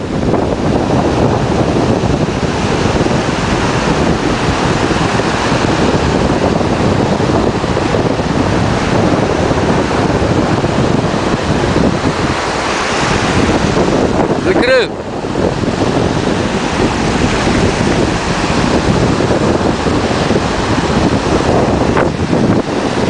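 Steady wind buffeting the microphone over breaking surf and waves washing up the beach.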